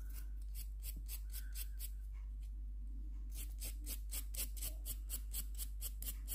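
A hand-held nail file scraping over a plastic press-on false nail in short, quick back-and-forth strokes, about five a second, with a pause of about a second partway through. This is the filing that blends the false nail in and roughs up its shiny surface.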